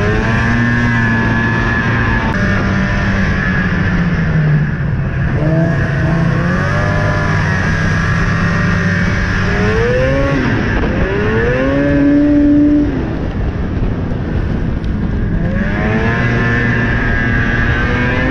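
Arctic Cat ZL600 snowmobile's two-stroke engine running along the trail, its pitch rising several times as the throttle is opened. It eases off briefly about two-thirds of the way through, then climbs again.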